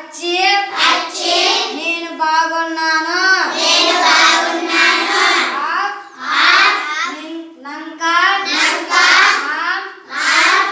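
A group of young schoolchildren singing together in unison in Odia, phrase after phrase with short breaks between lines.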